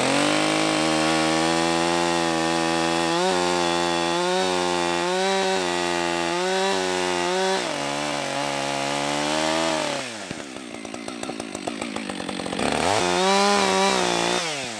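Husqvarna two-stroke chainsaw running at high revs while cutting through a waterlogged sunken log, its engine pitch dipping again and again under load. About ten seconds in the engine drops back, then it revs up again near the end.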